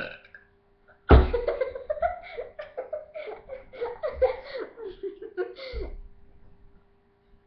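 A girl laughing: a fit of giggling breaks out about a second in and trails off around six seconds in.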